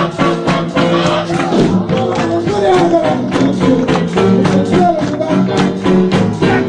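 A jump-blues band playing live, with drums, bass, piano and saxophones swinging at a steady beat under a voice scat-singing in gliding runs, from the scat-battle section of a live jive number.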